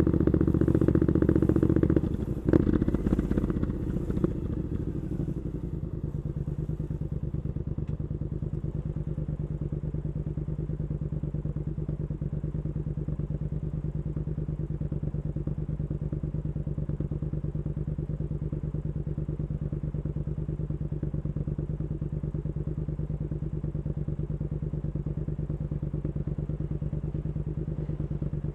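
Triumph Scrambler 900 parallel-twin engine running through an Arrow aftermarket exhaust. It runs louder at first, drops with a knock about two and a half seconds in, and by about six seconds has settled into a steady idle that holds to the end.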